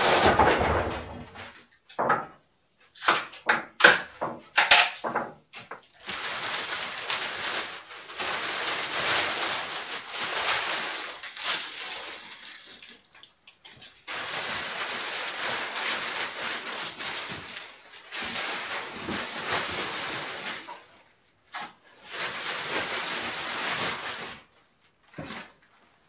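A few sharp wooden knocks as a wooden shipping crate is taken apart, then long stretches of plastic wrapping crinkling and rustling as it is pulled off a stove.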